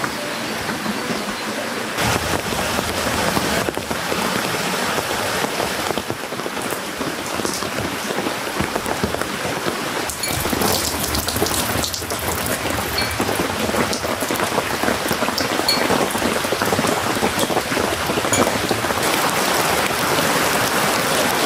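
Steady rain falling on a camping shelter, with many close drops tapping; it grows louder about ten seconds in.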